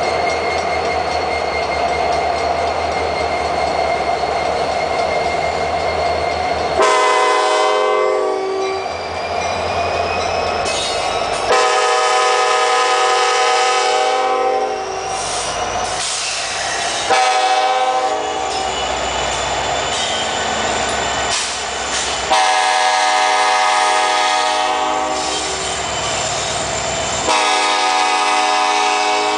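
A Union Pacific SD70ACe's Nathan Airchime K5LLA five-chime horn sounding five loud blasts, the first about seven seconds in, each a few seconds long. Between and before the blasts the passing freight train and its EMD diesel locomotives make a steady rumble, with a thin high squeal in the opening seconds.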